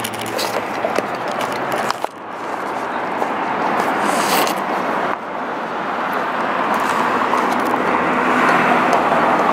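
Steady rushing noise of passing road traffic, mixed with a bulldog licking and gnawing a paper coffee cup that scrapes against a stone bench.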